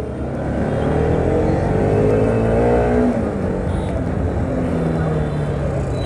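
Motorcycle engine accelerating: its pitch rises for about three seconds, drops about halfway through, then holds steadier as the ride goes on.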